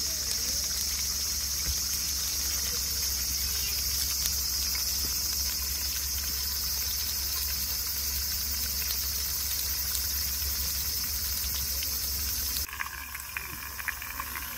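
A steady, high-pitched chorus of insects over a low rumble. About two seconds before the end it cuts abruptly to a quieter sound with light crackling.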